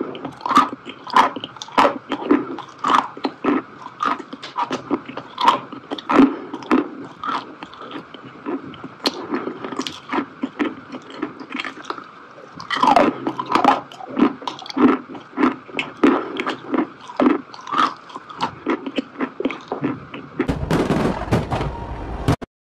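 Close-miked eating: repeated bites and chewing of a soft white sweet, with short, moist mouth sounds coming about once or twice a second. About two seconds before the end these give way to the dense crackle of fireworks.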